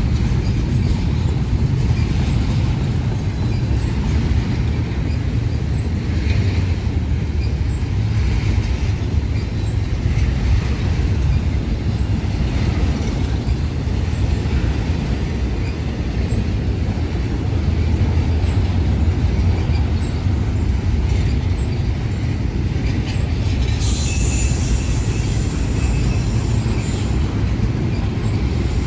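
Cars of a Union Pacific intermodal freight train rolling past with a steady low rumble of wheels on rail. Near the end, a high wheel squeal rises over the rumble for a few seconds.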